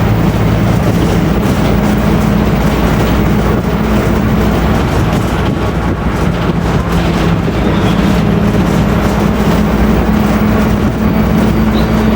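Bus on the move with its differential whining: a steady tone over loud road and engine noise, fading out about a second in and coming back around six seconds in.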